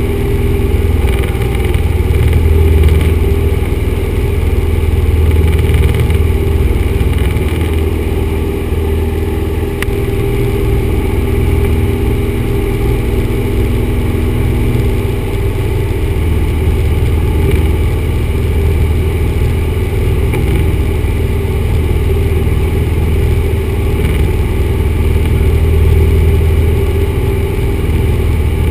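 Cockpit noise of a 1974 Cessna 172 in flight: its four-cylinder Lycoming O-320 engine and propeller droning steadily, heard from inside the cabin.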